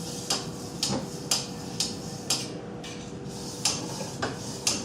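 A burr stone stroked along a speed-skate blade clamped in a sharpening jig, deburring the edge after stoning: short, crisp scrapes of stone on steel, roughly two a second, with a pause about halfway through.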